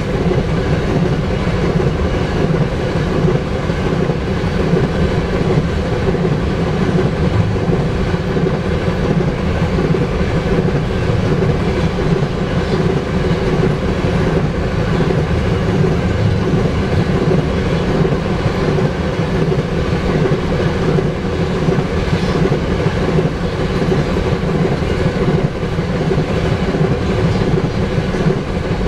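Empty oil tank cars of a freight train rolling past at a steady speed: a continuous rumble with the clatter of steel wheels on the rails.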